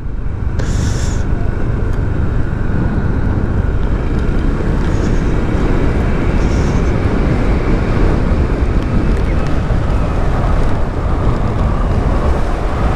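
Steady rush of a motorcycle ride at speed: wind and road noise with the engine running underneath, heard from the rider's microphone.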